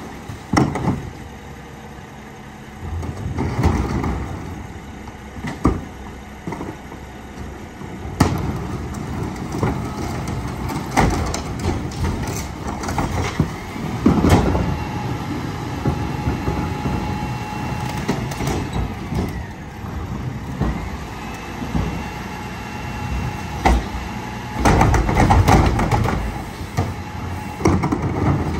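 McNeilus rear-loader garbage truck on a Mack TE chassis at work, its diesel engine running under the packing mechanism. Repeated metal bangs and clanks break through the engine noise, and a steady whine joins in about halfway through.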